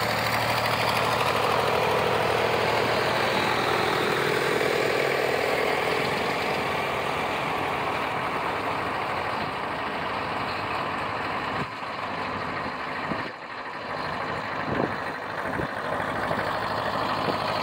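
Old farm tractor engines running as a line of vintage tractors drives past: the nearest is loudest at the start and fades away, and the next one comes closer near the end.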